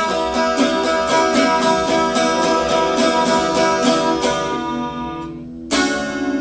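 Music: strummed acoustic guitar playing a steady rhythm, then a chord left ringing and fading before a loud new chord is struck near the end.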